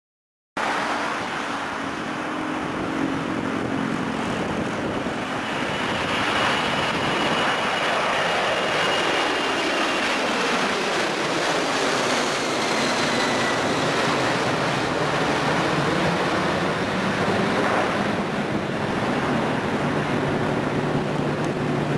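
Boeing 747-400's four Pratt & Whitney PW4056 turbofans at takeoff power as the jet climbs out low overhead. The engine noise cuts in about half a second in as a loud rush, with a whine that falls in pitch as the plane passes, then eases into a steady lower rumble as it moves away.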